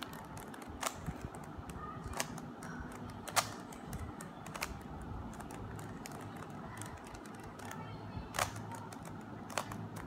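Plastic Rubik's Cube layers clicking as they are turned one-handed, an irregular run of sharp clicks with a few louder snaps spaced a second or more apart.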